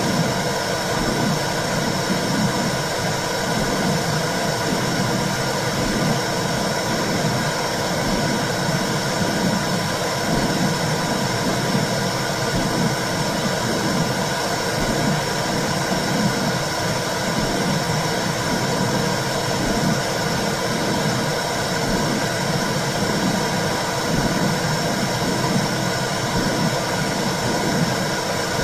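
Womb sound for soothing a baby: a steady low rushing noise with a soft, regular pulse, like a heartbeat heard from inside the womb.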